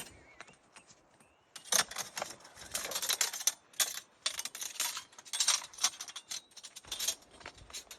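Steel bandsaw-mill blade being handled and folded into a coil by hand, the thin metal band rattling and clinking in quick irregular bursts that start about two seconds in.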